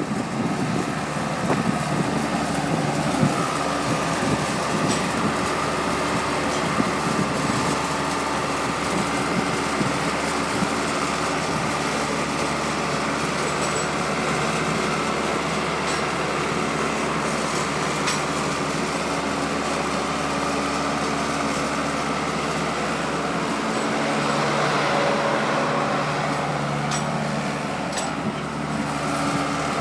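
Skid steer loader's engine running steadily under work, with a thin steady whine over it and a few sharp clicks or knocks here and there.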